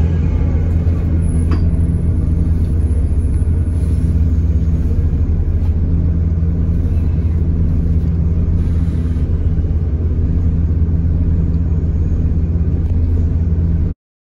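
A city bus heard from inside the passenger cabin while it drives along: the engine and running gear make a steady low rumble, with one light click about a second and a half in. The sound cuts off abruptly near the end.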